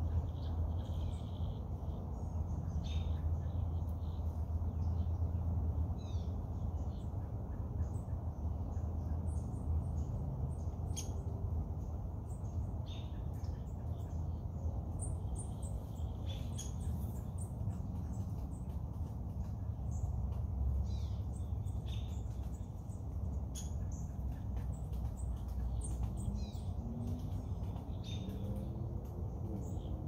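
Lakeside ambience: scattered short bird chirps and calls, irregular and overlapping, over a steady low rumble of a gentle breeze.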